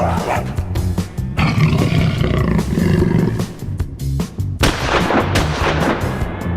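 A person imitating sounds with the mouth: several rasping, noisy vocal bursts over background music with a steady low beat.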